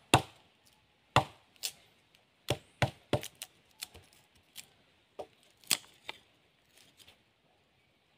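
Machete blade chopping into a length of wood, about a dozen sharp, irregularly spaced chops that turn fainter near the end.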